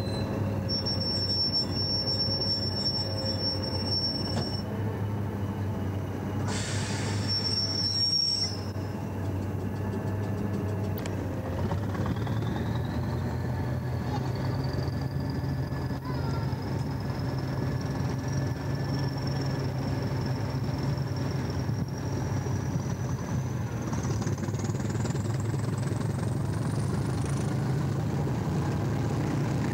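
Diesel-electric multiple unit's English Electric diesel engine running at a station stop. About twelve seconds in it opens up as the train pulls away, and a thin whine rises steadily in pitch as it gathers speed. There is a short burst of hissing noise about seven seconds in.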